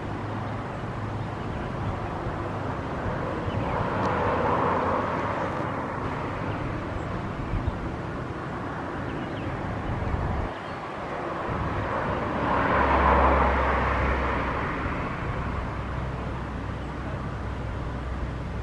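Outdoor engine noise that swells and fades twice, over a low rumble of wind on the microphone.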